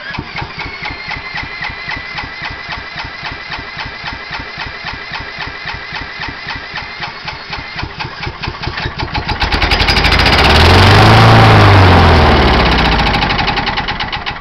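Kawasaki FC150V single-cylinder mower engine being cranked by an electric drill: the drill whines and the engine chugs over in an even rhythm. About nine and a half seconds in it fires on carb cleaner and runs loudly for a few seconds, rising and then falling in pitch, then dies back to cranking. The owner suspects a plugged carburetor.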